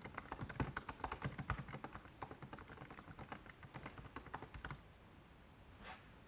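Typing on a computer keyboard: a quick run of keystrokes for about five seconds, then a pause and one more keystroke near the end.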